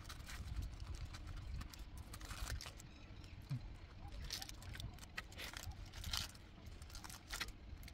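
Scattered light clinks and taps of dishes and cutlery being handled at a dining table, over a low steady rumble.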